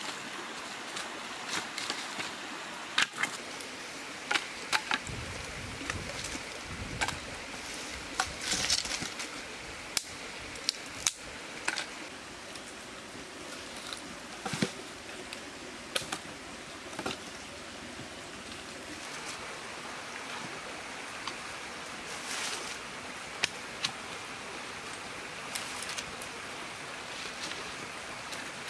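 Dry sticks knocking and snapping as a small wood fire is built up and fed, with sharp clicks and cracks scattered throughout over a steady hiss.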